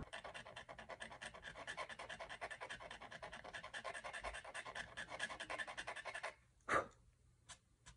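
X-Acto hobby knife blade scraping the wood surface in rapid, short strokes, picking out a spot of stain that bled past the line. The scraping stops about six seconds in, followed by a single short tap.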